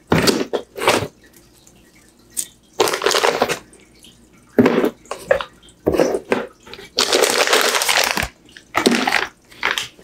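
Bundles of sleeved power-supply cables and a plastic bag of cables being handled and shifted about in the box: a run of rustling, crinkling bursts, the longest about a second long late on.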